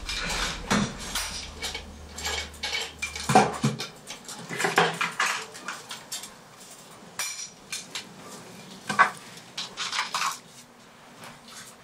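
Irregular light clinks and knocks, some louder than others, with a low hum that stops about four seconds in.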